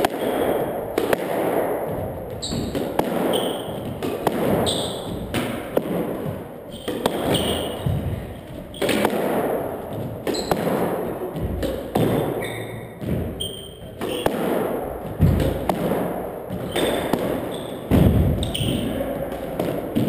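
Squash rally: the ball cracks off racquets and the walls every second or two, while court shoes squeak and thud on the hardwood floor.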